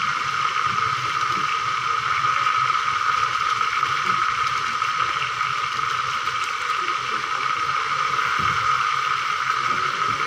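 Chicken feet frying in a wok over a portable gas stove: a steady sizzle.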